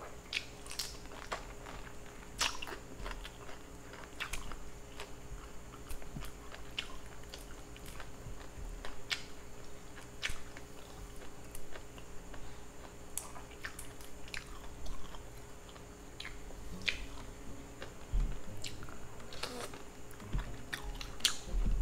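Buttered shrimp being peeled by hand and chewed: crackling of the shells, with chewing and scattered sharp clicks and smacks throughout.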